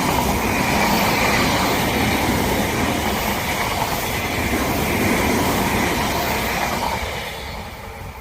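Odakyu Line electric train passing close by at a level crossing: a loud, steady rush of wheels on rail that dies away over the last second or so.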